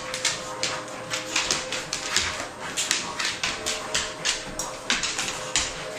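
Dogs' claws clicking and scrabbling on a hardwood floor as two dogs tussle in play: a quick, irregular patter of sharp clicks, several a second.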